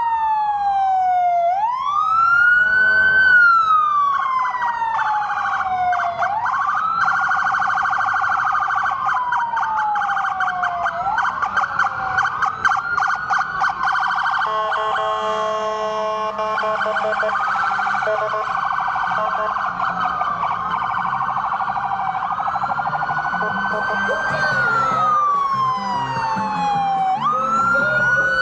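Emergency-vehicle sirens driving by: a slow wail rising and falling every few seconds, switching to a fast yelp for several seconds, then several sirens sounding over each other before one returns to the slow wail.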